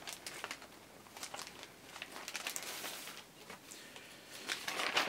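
Clear plastic zip bag crinkling and paper sheets rustling as an instruction booklet and parts are pulled out by hand, in soft scattered bursts that get a little louder near the end.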